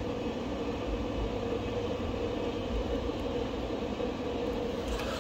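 Steady hum of the Sungold Power 12000 W inverter's cooling fan running.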